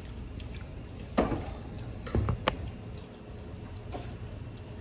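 A few sharp clinks and knocks of a spoon and fork against a ceramic plate during eating, about five spread over the few seconds, some with a dull thud from the table, over a low steady hum.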